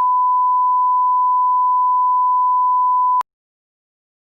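Steady, unwavering single-pitch test tone, the line-up beep at the head of a broadcast programme, cutting off suddenly about three seconds in.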